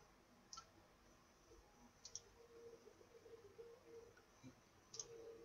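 Faint computer mouse clicks over quiet room tone: a single click about half a second in, a double click about two seconds in, and another click near the end.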